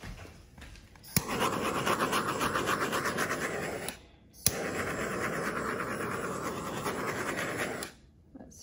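Handheld torch clicked alight and run over a wet epoxy resin flood coat in two bursts of about three seconds each, a steady flame hiss with a sharp igniter click at the start of each. The flame is popping the air bubbles in the fresh resin.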